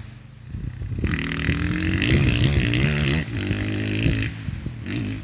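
Sherco enduro motorcycle engine being ridden hard, its pitch rising and falling as the throttle opens and closes. It is quieter for the first second, loudest from about a second in to just past four seconds, with a short blip near the end.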